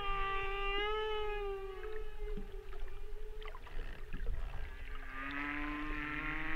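Humpback whale song: long, moaning calls rich in overtones. One call slowly falls in pitch and fades over the first two seconds, and a lower call begins about five seconds in, rising gently. A few faint clicks sound in between.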